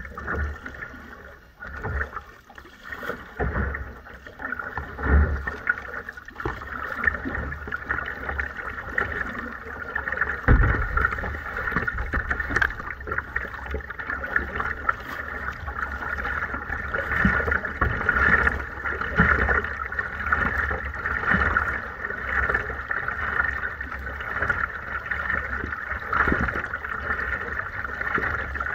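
Water swishing and splashing along the hull of a kayak moving under paddle, heard from a camera mounted on its bow, with irregular low thumps.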